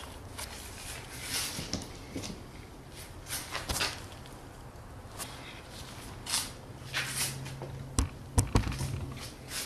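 Scattered light clicks, knocks and rustles of a car's rear wiper arm being handled and lifted off the rear window glass, with a few sharper knocks near the end. A low steady hum comes in about seven seconds in.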